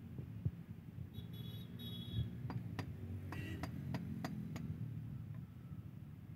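Wooden rod worked inside a cylinder bore of a Mahindra tractor engine block, giving about half a dozen sharp taps over a couple of seconds against a low steady rumble.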